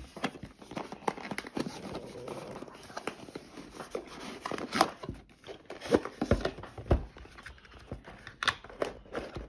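Packaging of a boxed RC speed controller being opened and handled: crinkling and rustling with scattered sharp clicks and knocks.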